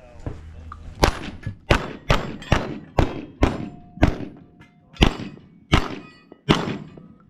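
Shotgun fired in quick succession, about ten shots roughly half a second to a second apart, each trailing off briefly.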